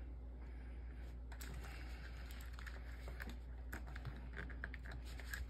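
Scattered plastic clicks and clacks of Apple IIgs keyboard keys as keycaps are rocked and pulled up off their switches, in small clusters, over a low steady hum.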